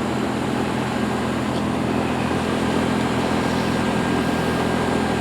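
Heat pump running steadily shortly after start-up: an even fan noise with a steady low machine hum underneath.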